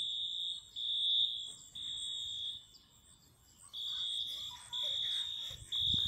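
School fire alarm sounding: a high electronic tone beeping in groups of three, with a pause of about a second between the groups.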